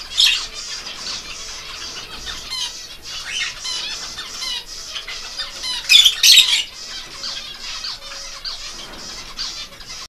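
A flock of caged lovebirds chattering and squawking steadily, with louder shrill shrieks just after the start and again about six seconds in.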